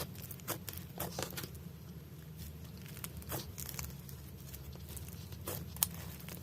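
White crunchy slime handled, pressed and stretched, giving scattered small crisp crackles and pops.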